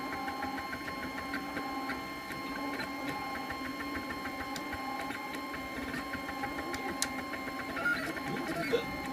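3D printer running a print: its stepper motors whine in several steady tones as they drive the print head and bed, over a rapid patter of small ticks, with a few sharper clicks near the end.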